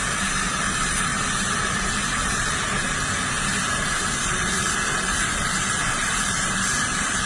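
TIG (gas tungsten arc) welding arc hissing steadily.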